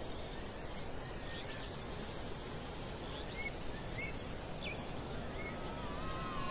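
Outdoor daytime ambience: a steady background hiss with scattered short bird chirps. Near the end, strange wavering tones start to come in.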